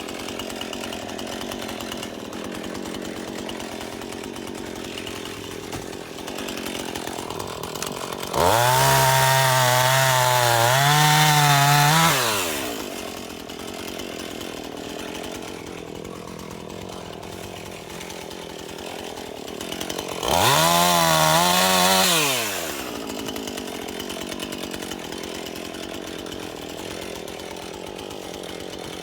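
Husqvarna 450 Rancher two-stroke chainsaw running at idle, revved up hard twice for a few seconds each, its pitch wavering at speed and then sliding back down to idle.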